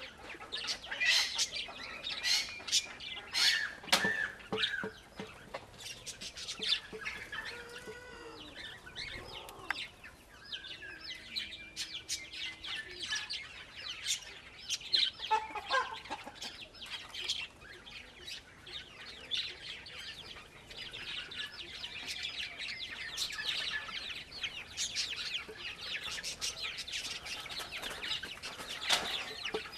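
Birds in a pigeon loft: a dense run of short, high chirps and calls, with a few lower curving calls among them.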